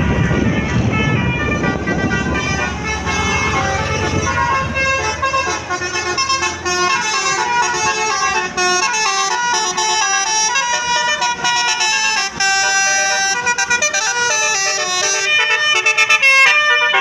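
Tour bus's Basuri telolet musical horn playing a fast tune of stepped notes, breaking into rapid repeated notes near the end. A low rumble underneath fades after the first few seconds.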